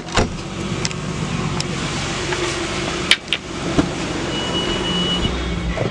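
Car door handle and latch being worked as the driver's door is opened: a few sharp clicks and one louder clack about three seconds in, over a steady rushing background. A thin, steady high beep lasts about a second near the end.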